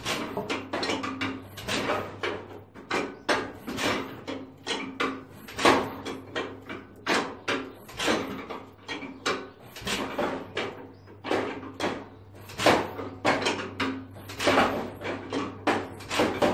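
1949 Farmall Super A's four-cylinder engine running unevenly on choke just after a cold start, with loud, irregular pulses several times a second.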